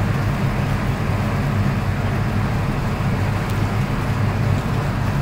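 A boat's motor running steadily: a low, even hum.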